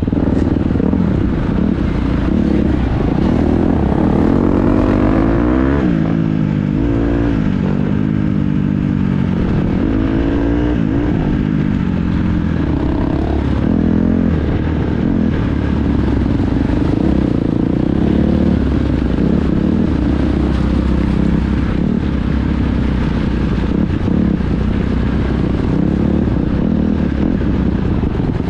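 Dirt bike engine running hard in an off-road race, revs rising and falling repeatedly as the rider works the throttle and gears, with a cluster of rev swings from about four to twelve seconds in.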